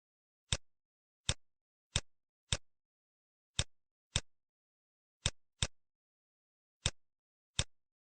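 Computer mouse clicks, about ten short sharp clicks at irregular intervals, as the design software is worked.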